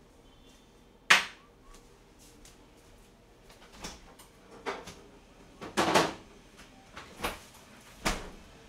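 Kitchen clatter from things being handled out of sight: one sharp knock about a second in, then a string of softer knocks and clunks.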